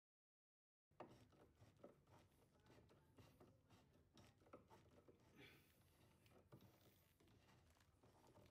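Faint small clicks and scraping of a long driver turning the adjusting screw of an EZ-Level cabinet leveler through the cabinet side, starting suddenly about a second in.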